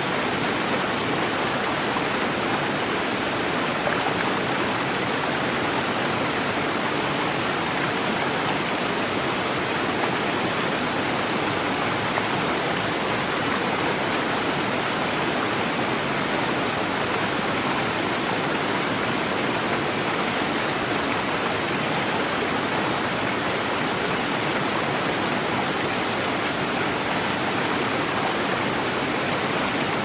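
Waterfall pouring into a pool: a steady, unbroken rush of falling and churning water.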